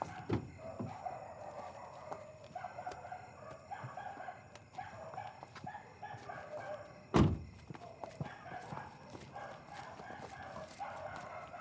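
A car door shuts with a single loud thunk about seven seconds in, after a lighter knock just after the start. A steady fluttering chirr carries on in the background.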